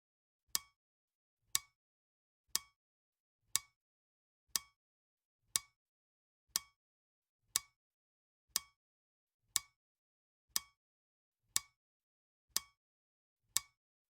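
Countdown timer's clock tick sound, one sharp tick each second at an even pace, each with a short ringing tail.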